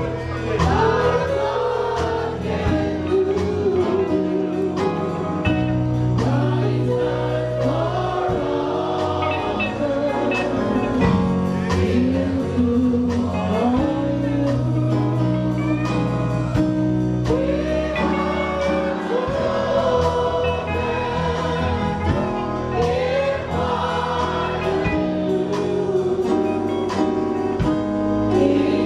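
Gospel choir singing a worship song with instrumental accompaniment: sustained bass notes and a steady drum beat.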